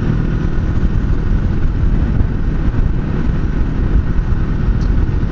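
Kawasaki Z300's parallel-twin engine running steadily while riding at road speed, mixed with loud wind rumble on the action camera's microphone.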